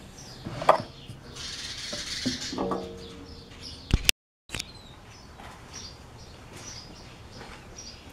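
Wood and jig handled on a table saw that is not running: a sharp knock about a second in, then scraping and a short squeak. The sound cuts out briefly about four seconds in, after which faint bird chirps repeat.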